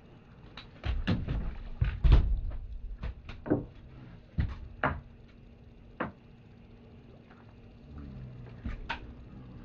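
A string of knocks and thumps from fish handling and gear on a pontoon boat's deck, as a caught fish is unhooked with pliers and put away. The heaviest thumps come about one and two seconds in, followed by lighter scattered knocks.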